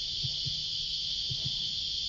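Steady, unbroken high buzzing of a summer cicada chorus. Soft low double thumps come about once a second beneath it.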